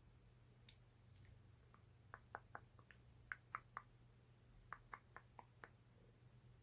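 Small, sharp clicks and taps in three quick clusters of four to six, typical of ASMR tapping and clicking, over a faint steady hum.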